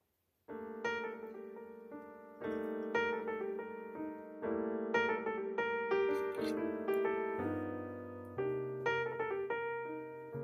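Background piano music: a gentle run of struck piano notes that starts suddenly about half a second in.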